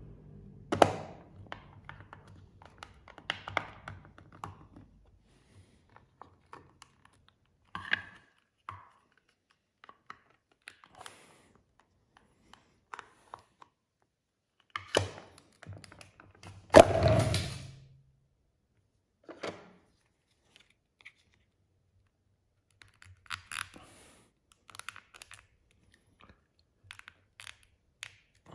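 A plastic figure and its display base being handled: scattered clicks, taps and scrapes of hard plastic, with louder knocks about a second in and around seventeen seconds in.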